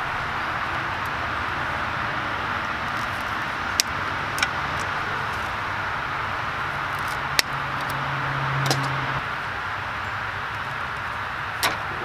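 Red-handled side cutters snipping the zip ties that hold a truck's wheel-speed sensor line: four sharp snips at uneven intervals, over a steady background hiss and hum.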